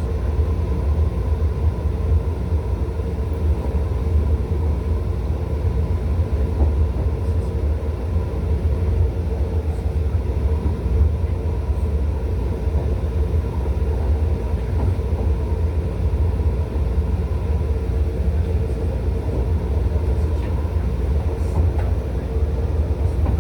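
Cabin noise inside a Taroko Express electric train running at speed between stations: a steady low rumble of wheels on rail, with a faint constant tone above it.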